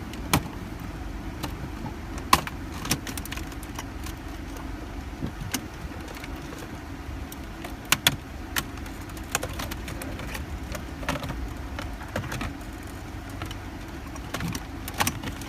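Plastic interior trim of a Nissan Altima's centre console being worked loose by hand: scattered clicks and snaps of the trim clips, the sharpest about two seconds in and a quick pair about eight seconds in. A steady low hum runs underneath.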